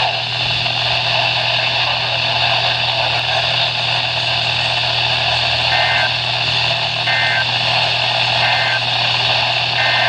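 NOAA weather radio receiver hissing with reception static and a low hum. About halfway in it sends a run of short two-pitch data chirps, four of them about a second and a half apart with the last one longer: the SAME header bursts that open an Emergency Alert System message.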